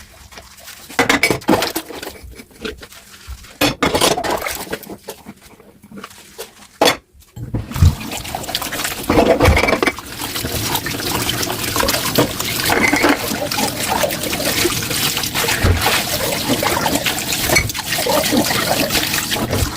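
Dishes knocking and clinking in a sink. About seven and a half seconds in, a kitchen tap starts and water runs steadily over the dishes while they are handled, with occasional clinks.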